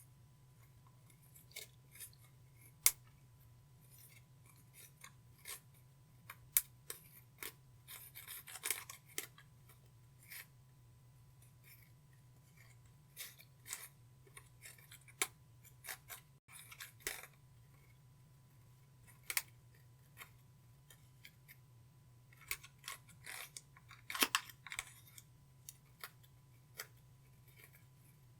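Clear slime being worked by hand with eyeshadow mixed in, giving scattered sharp sticky clicks and short crackling clusters of pops. A faint steady low hum runs underneath.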